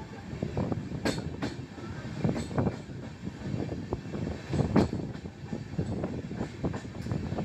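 Train running, its wheels clattering with irregular knocks over a steady rumble, heard from aboard a passenger coach.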